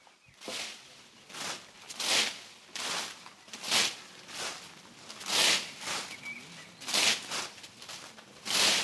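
Hedge hook swung in quick repeated strokes, swishing and rustling through hedge foliage a little more than once a second.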